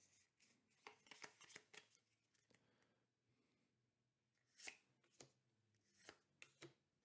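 Faint, soft clicks and snaps of trading cards being slid and flicked one at a time through a hand-held stack: a quick cluster about a second in, then a few single clicks in the second half.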